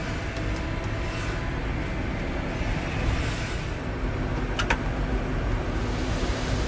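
Tractor engine running steadily, driving the grain cart's PTO unloading auger as corn is unloaded. There is a single sharp click about four and a half seconds in.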